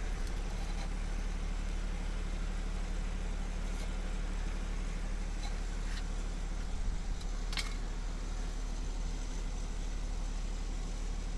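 A steady low machine hum drones throughout, with a few light clicks and knocks near the middle.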